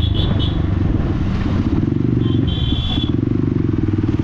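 Motorcycle with a loud exhaust running under way, its engine note mostly steady and wavering briefly in the middle.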